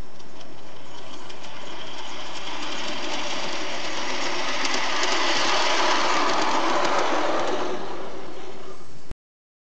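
Large-scale garden-railway model train running along the track: the electric locomotive's motor and gears whir and the wheels click over the rails, growing louder midway as it comes closest, then easing. The sound cuts off abruptly about nine seconds in.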